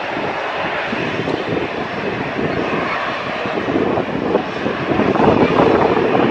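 Airbus A380's four Engine Alliance turbofans at takeoff power, heard from behind the aircraft as a steady jet-engine noise on the takeoff roll, getting louder about five seconds in.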